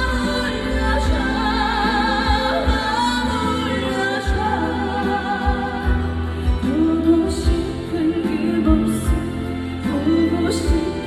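A trot song performed live: a woman singing with wide vibrato over a loud amplified backing track.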